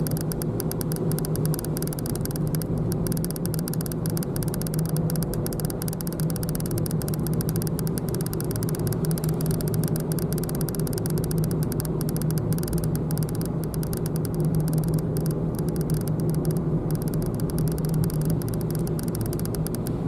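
Inside a moving car's cabin: the engine's steady low drone and tyre and road noise while driving at a steady speed.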